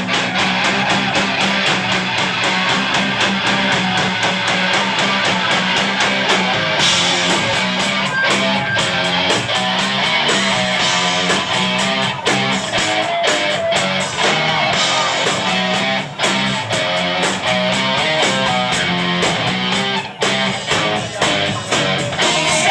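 Live rock band playing loudly: strummed electric guitar over steady drum hits.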